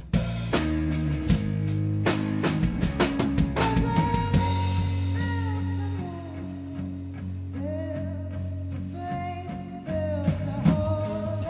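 Indie rock band playing live: drum kit, electric bass and electric guitar. About four seconds in the drums drop out and a woman's singing comes in over held bass and guitar notes, with a drum hit again near the end.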